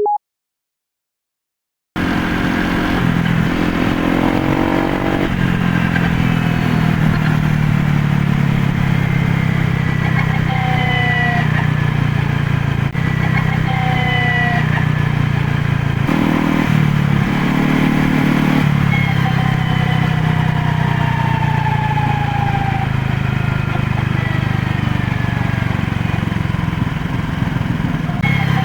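Honda PCX (JF56) scooter's single-cylinder engine running on the road, starting about two seconds in and speeding up and slowing down several times. Each time it slows, a high whine slides down in pitch: the deceleration noise from a failing countershaft bearing in the final reduction gearbox.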